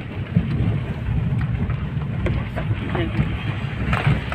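Steady low rumble of a moving car with wind buffeting, heard from inside the car.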